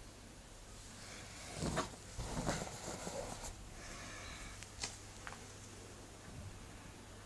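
Handling noise of a cardboard tablet box and its packaging: a stretch of rustling and scraping a second and a half in, then a single sharp click nearly five seconds in.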